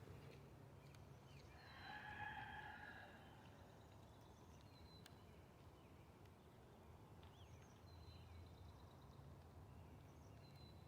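A rooster crowing once, faintly, about a second and a half in, the crow lasting under two seconds. Scattered faint small-bird chirps can also be heard.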